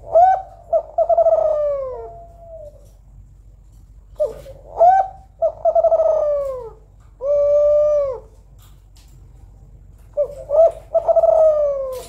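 Female Kelantan-type spotted dove cooing. It gives three calls: one at the start, one about four seconds in and one near the end. Each is a few short clipped notes followed by a long coo that falls in pitch. The middle call ends with a second long, level coo.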